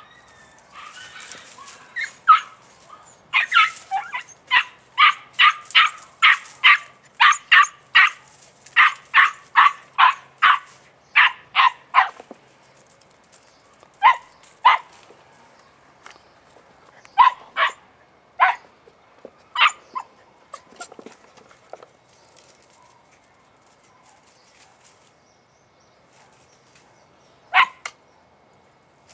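Podenco puppy barking in a fast run of high-pitched yelping barks, about two a second, for some ten seconds, then thinning to scattered single barks with one more near the end. The barking comes as the hound hunts for a rabbit hidden in the brush piles.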